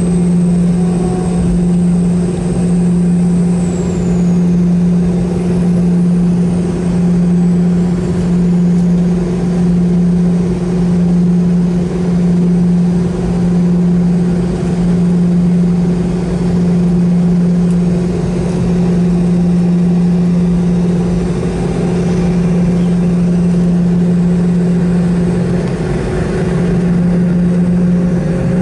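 Boeing 717-200's rear-mounted Rolls-Royce BR715 turbofan heard inside the cabin beside it, running at idle with a steady loud drone that swells and fades slowly. Near the end the drone rises slightly in pitch.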